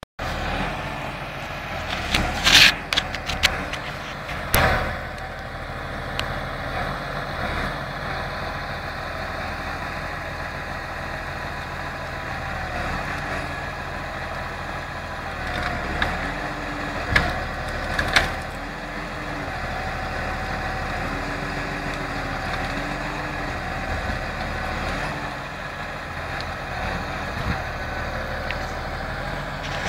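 Valtra tractor's engine running steadily as it drives a timber crane loading logs, with a few sharp cracks and knocks from the wood being handled, the loudest about two to five seconds in and again around seventeen to eighteen seconds.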